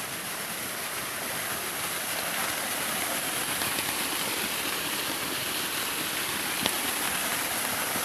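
Small waterfall splashing over rocks and from a wooden flume into a pool: a steady rush of falling water that grows a little louder over the first few seconds.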